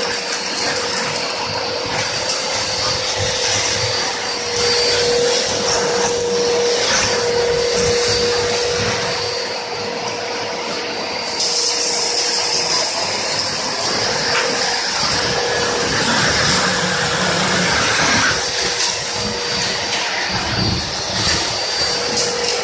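Two-motor, 2.2 kW industrial vacuum cleaner running continuously with a steady whine, its loudness dipping for a second or two around the middle before coming back up.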